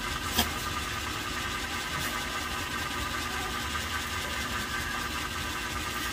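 Steady mechanical hum of a running motor, with one sharp click about half a second in.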